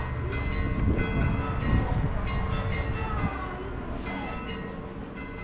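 Low rumble of a heavy vehicle passing, with several steady high-pitched tones above it; the rumble eases about three seconds in.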